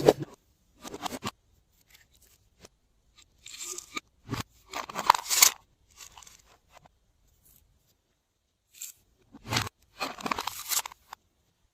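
Glossy slime being squished and kneaded by hand in several separate bursts, the longest near the middle and near the end.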